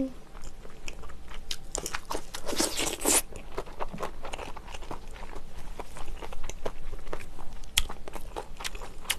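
Close-miked crunching bites into ponytail-radish kimchi (chonggak kimchi), loudest about two to three seconds in, then chewing with many small crunchy clicks.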